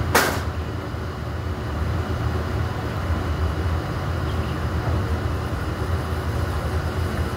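Steady low outdoor rumble, with one brief sharp noise just after the start.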